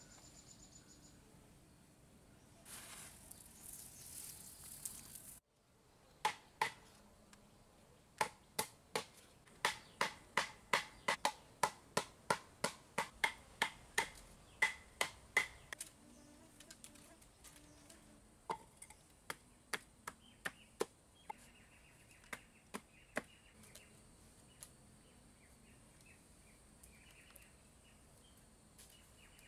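A hand scraping through a pile of fine sand with a rough hiss for a couple of seconds, then a run of sharp knocks about two a second for about ten seconds, followed by a few scattered ones, as something hard is struck with a hand tool. Insects drone steadily and high throughout.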